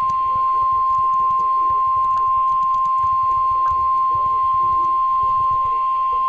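NOAA Weather Radio warning alarm tone: one steady, loud 1050 Hz tone from a weather radio, the signal that a new warning, here a tornado warning, is about to be read.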